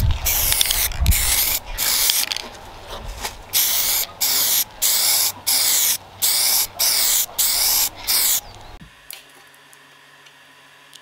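Black spray paint hissing from its nozzle in short bursts, about two a second, as an arrow shaft is coated. The bursts stop suddenly near the end.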